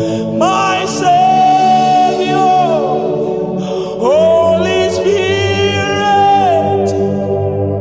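A voice singing two long, held phrases in gospel worship style, each rising into a sustained note and then sliding down, over steady sustained keyboard chords.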